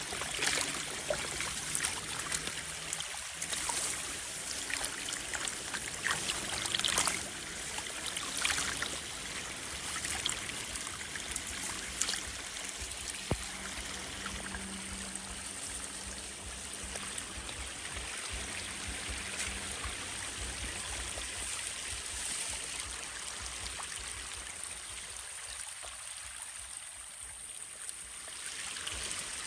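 Water running steadily, like a stream or runoff channel, with a few short sharp sounds in the first several seconds.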